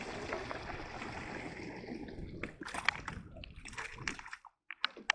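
Water splashing and sloshing, then a run of sharp knocks and clicks starting about two and a half seconds in.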